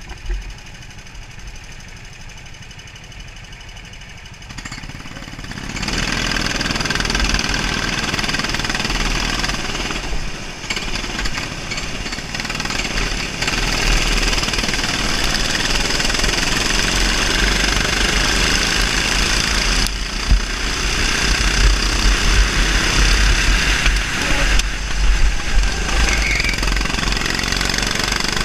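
390cc single-cylinder four-stroke rental kart engines running at low throttle, then opening up about five seconds in and running loud and steady at full throttle as the karts race in a pack, with wind buffeting the kart-mounted microphone.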